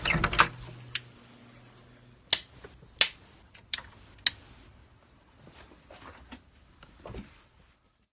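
A series of sharp, irregularly spaced clicks and knocks, about eight in all, with a low steady hum under the first two seconds.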